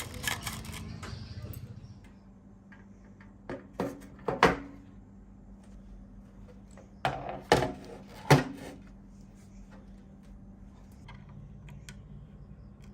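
A series of sharp knocks and clacks in two clusters, the loudest about eight seconds in, over a faint steady hum.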